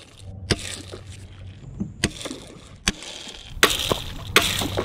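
Electric trolling motor humming on a small fishing boat, with water sloshing and a few sharp knocks on the hull. The water noise grows louder near the end.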